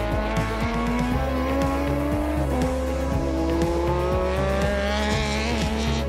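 Racing motorcycle engine at full throttle, climbing in pitch through the gears, with a drop at a gear change about two and a half seconds in. Background music with a steady beat plays under it.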